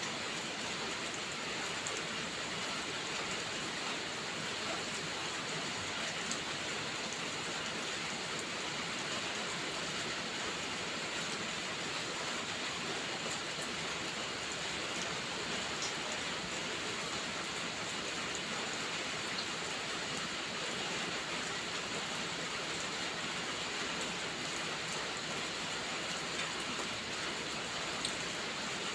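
Heavy rain falling steadily, with a few faint sharp crackles from a wood fire now and then.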